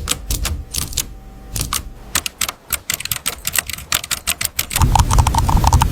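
Rapid, irregular keystrokes tapped on keyboards of different materials, crisp clicks and clacks in quick runs. Background music with a low beat comes in near the end.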